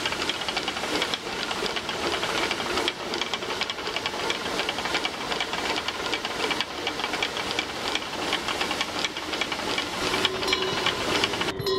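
Harness bells on a string of pack mules jingling and clanking without pause as the animals walk past, over a steady rushing hiss.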